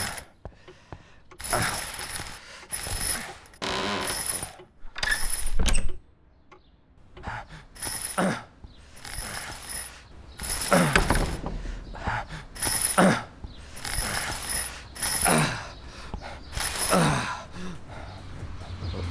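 Mechanical creaking and squeaking sound effects: a run of separate creaks about one a second, several sliding down in pitch, with a short pause in the middle.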